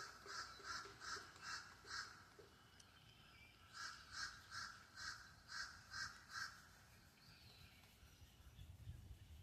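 Distant crows cawing in two quick runs of harsh calls, about three caws a second, the second run starting about four seconds in; faint.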